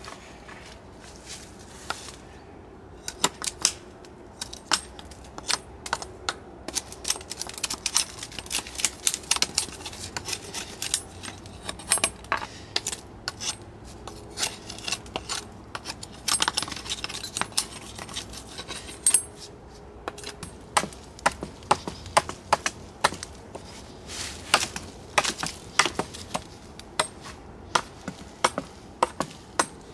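Kershaw Camp 10 machete blade striking and shaving a dry wooden stick in quick, sharp, irregular chops, coming in runs with short pauses.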